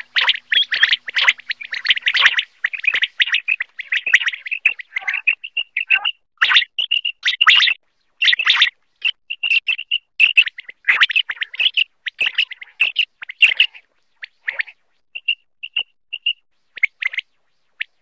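Common quail calling: a run of short, high notes, thick and overlapping over the first several seconds, then thinning to spaced single notes in the second half.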